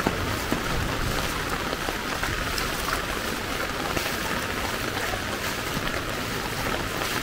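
Heavy rain falling steadily, a dense even hiss with scattered sharper drop ticks.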